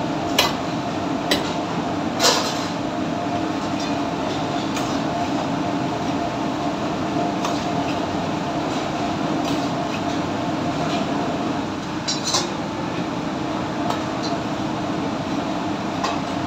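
Metal ladle clinking and scraping against a steel pan as a dish is stirred, a sharp clink every second or two, the loudest near the start and about twelve seconds in. Under it runs the steady noise of a commercial kitchen's extraction hood and gas burners.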